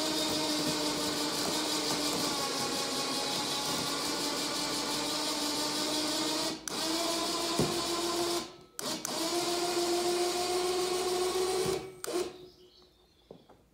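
Lifting motor of a powered round-bale trolley running with a steady whine as it tilts a round bale of hay up onto the trolley. It cuts out twice, briefly, near the middle, and stops near the end.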